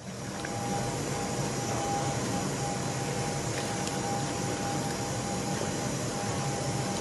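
Liquid poured in a steady stream from a ladle into bowls of sour soup, a continuous rushing splash with a faint steady whine above it.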